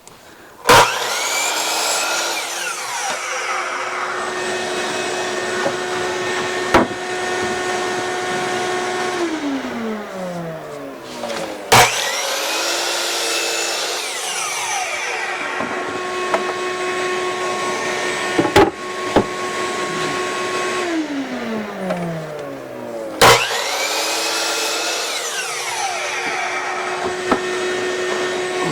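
Electric saw's motor run three times: each time it starts with a click, whines up to speed, runs steady while squaring up board ends, then spins down in a falling whine. The cycles start near the beginning, about 12 seconds in and about 23 seconds in.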